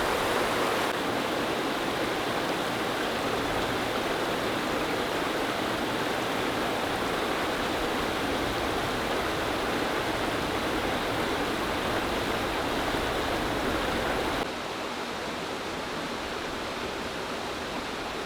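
Waterfall and stream water rushing in a steady wash, which drops to a quieter level about fourteen seconds in.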